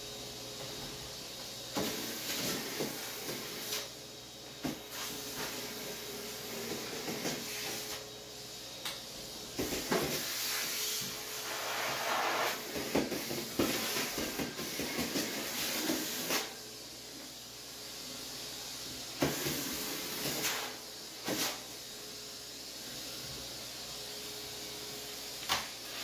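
Henry canister vacuum cleaner running with a steady hiss and faint hum as its hose and wand suck up hair and dust, with louder rushes now and then and scattered knocks of the wand against the tile floor.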